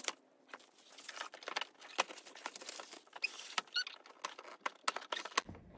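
Clear plastic shrink-wrap crinkling and crackling as it is pulled off a cardboard board-game box, in quick irregular crackles that die away near the end.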